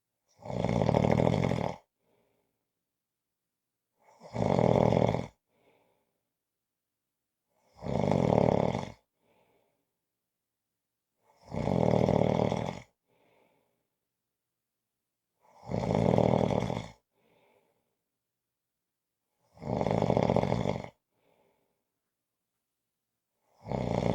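A person snoring in a steady rhythm, about one snore every four seconds, each lasting a little over a second, with silence between them.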